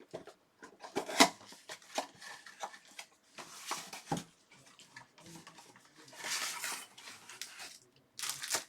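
Trading card packs being handled and opened: the wrappers crinkle and tear, and the cards rustle and click. There are many short snaps and rustles, with two longer crinkling stretches, the second near the end.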